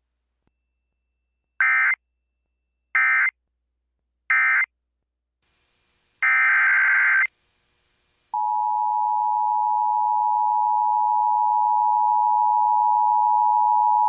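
Emergency Alert System header tones: three short bursts of warbling digital data about a second and a half apart, then a longer burst. About eight seconds in, the steady alert attention tone starts and holds.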